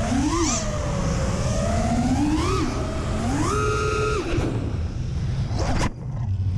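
5-inch FPV racing quadcopter's brushless motors and three-blade propellers whining, the pitch rising and falling with each throttle punch and held high for about a second in the middle. Near the end the sound briefly drops away, then starts climbing again.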